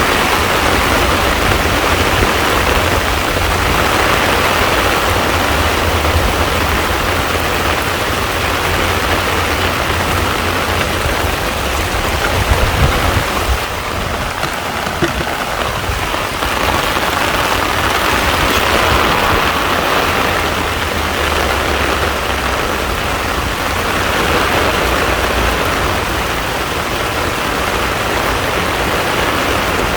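Heavy rain falling on a pond, a steady dense patter with a deep rumble underneath. It eases slightly about halfway through.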